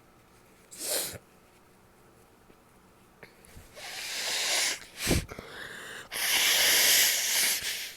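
A person sneezing. There is a short sniff about a second in, then a swelling breath in, a sharp explosive sneeze about five seconds in, and a long loud hissing blast of breath lasting nearly two seconds near the end.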